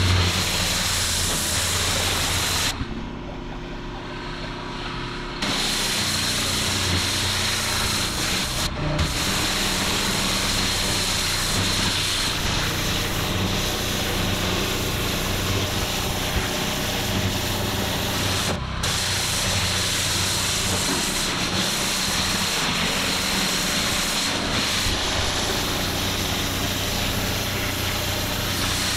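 Pressure washer lance jetting water onto block paving: a steady spray hiss over the low hum of the machine's engine. The hiss drops away for a couple of seconds about three seconds in, then carries on.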